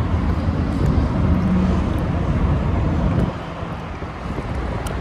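Low rumble of a vehicle engine running close by, which drops away sharply about three seconds in, leaving a quieter outdoor background.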